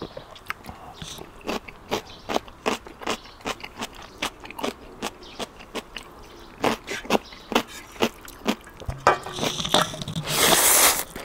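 Crunchy chewing of kkakdugi (cubed radish kimchi) close to the microphone, about two to three crunches a second. Near the end comes a louder, longer hissing rush.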